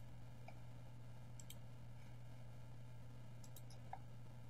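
A few faint computer-mouse clicks, the clearest near the end, over a steady low hum.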